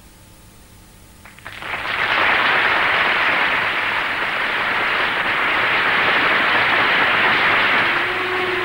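An audience applauding: clapping breaks out suddenly about a second and a half in and carries on steadily.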